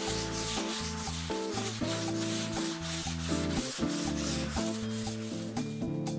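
Sanding block rubbed quickly back and forth over a freshly plastered wall, an even scratching at about four to five strokes a second, with background music.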